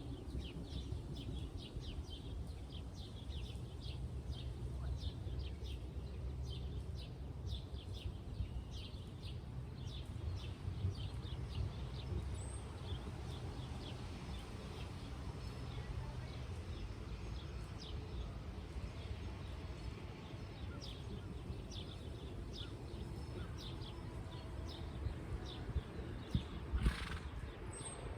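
Horse being ridden outdoors, with a steady low rumble of movement and birds chirping throughout; a short burst of noise comes near the end.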